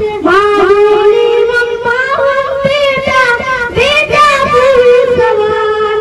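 A boy singing a ghazal solo into a microphone, holding long notes that bend and waver in pitch.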